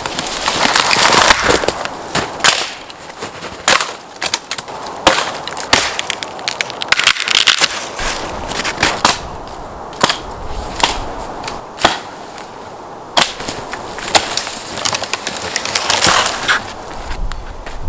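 Dry wood cracking and knocking in irregular sharp snaps, with scraping and rustling between them, as when branches are broken up for firewood.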